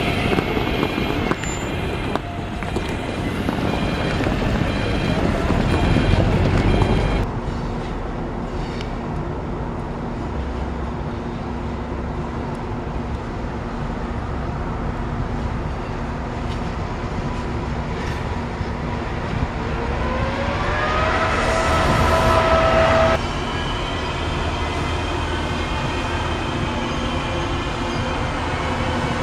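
Electric rail vehicles running in three short takes. First a Translohr rubber-tyred guided tram moves off, with a repeated beep about once a second. Then a regional train hauled by an electric locomotive rolls in over the rails, with a whine rising in pitch near the end. Finally an electric locomotive pulls a long train away, with a steady high whine.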